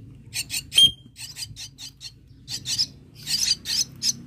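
Two jalak nias nestlings giving short, harsh, raspy begging calls, repeated several times a second and coming faster and thicker near the end as they gape for food. A single sharp click sounds about a second in.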